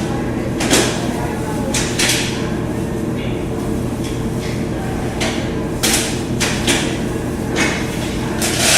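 Hard parts of a U-turn bulk vending machine knocking and clicking as they are handled and fitted back into place, a string of separate sharp knocks. A steady low hum runs underneath.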